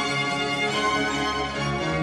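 Background instrumental music with sustained, held notes.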